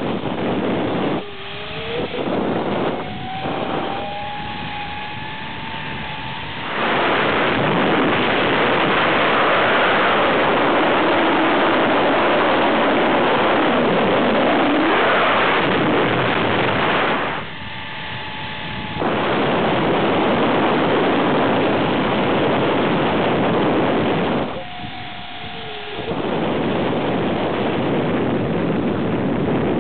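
Zipline trolley running fast down its steel cable, with a whistling whine that rises in pitch over the first few seconds. Then long stretches of loud rushing air buffet the microphone, broken twice by brief quieter moments where the trolley whine returns, steady and then falling.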